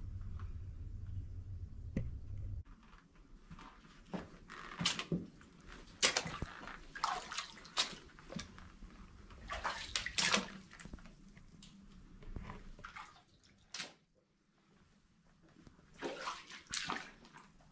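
Footsteps crunching and scuffing on a rocky tunnel floor in an irregular, slow walk, after a low rumble in the first couple of seconds.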